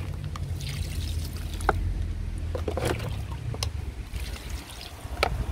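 Liquid fertilizer poured from a cup over potted leafy greens, trickling and splashing onto the leaves and soil, with a few sharp ticks of drops and a low steady rumble underneath.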